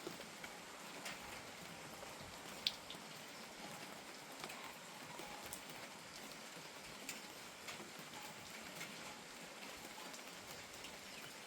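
Steady light rain with drops tapping irregularly on surfaces close by; one sharper drip about two and a half seconds in.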